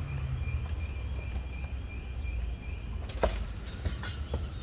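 Outdoor ambience: a steady low rumble under a high, rising chirp that repeats about three times a second and stops just before three seconds in. A single sharp knock follows a few tenths of a second later.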